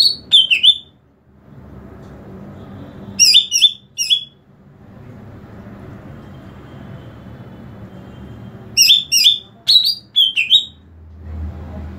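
A caged cucak ijo (green leafbird) giving its calling song: three quick bursts of sharp, high, down-slurred whistled notes with a few seconds' pause between them. A steady low hum runs underneath.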